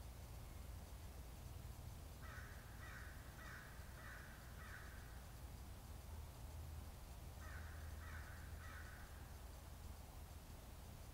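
A crow cawing in the distance: a run of about five caws, a pause, then three more.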